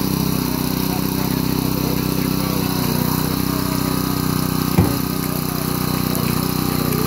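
Small gasoline engine of a hydraulic rescue-tool power unit running steadily, with one sharp snap of car metal giving way under the hydraulic tools about five seconds in.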